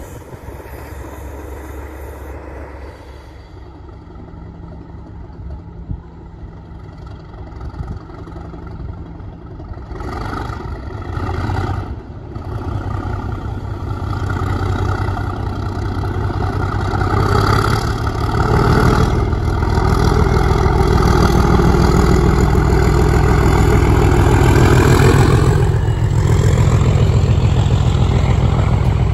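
Class 37 diesel locomotive with an English Electric V12 engine, running under power as it approaches and passes. It gets steadily louder to a peak past the camera, then eases slightly near the end as the Mk3 coaches and brake van roll by with a clatter of wheels on the rails.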